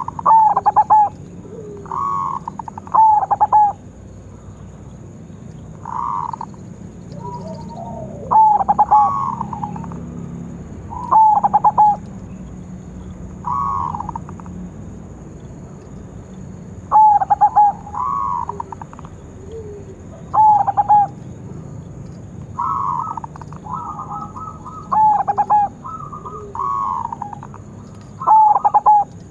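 Silver zebra dove (perkutut) cooing: short phrases of rapid stuttering, rolling notes repeated every two seconds or so. Loud, sharp phrases alternate with softer, slightly higher ones.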